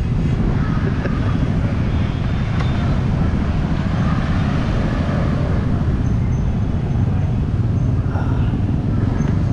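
Wind buffeting the microphone as a steady, loud low rumble, with street traffic noise behind it.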